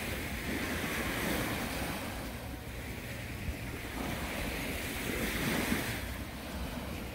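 Small waves washing onto a sandy beach, the surf rising and falling in slow swells every couple of seconds, with wind rumbling on the microphone.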